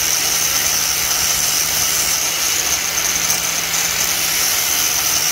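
Angle grinder with a cutoff disc running steadily and cutting through a steel wheel lug stud on the hub, with a high, steady whine over the grinding noise.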